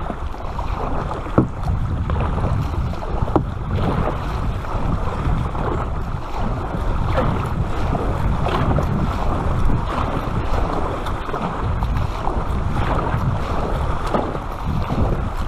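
Water splashing and washing along the hull of a paddled sit-on-top kayak, with wind noise on the microphone. Two sharp knocks in the first few seconds.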